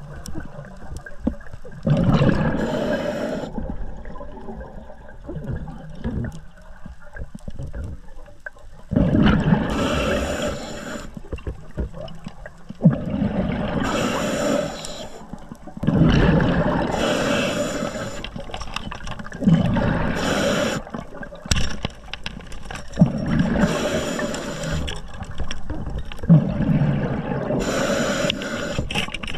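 Underwater gurgling and bubbling in bursts every few seconds, typical of a diver's exhaled bubbles from a scuba regulator, over a low, steady underwater rumble.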